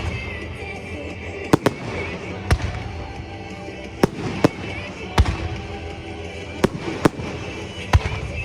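Fireworks bursting in sharp bangs at irregular intervals, about eight of them, over music playing.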